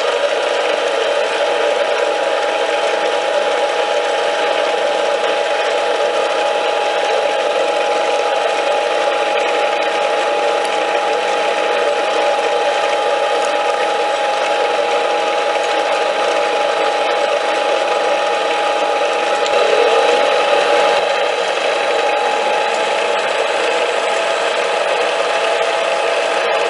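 Metal lathe running steadily with a constant whine of its gears and motor, briefly louder about twenty seconds in.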